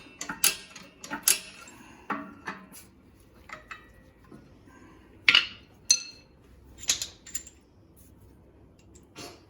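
Steel hand tools and parts clinking and clanking against each other in an irregular string of about a dozen sharp metallic strikes, some with a brief ring. The loudest strikes come about halfway through.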